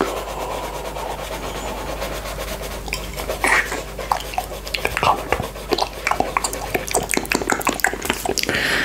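Close-up licking of buckwheat honey off a glass plate held to the lips: wet mouth and tongue sounds, growing into a dense run of small smacks and clicks from about three seconds in. Under it, a coloured pencil scratches softly on paper.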